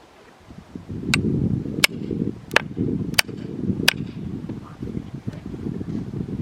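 Firewood being chopped: five sharp wooden strikes at a steady pace of about one every 0.7 s, starting about a second in, over a low rumble.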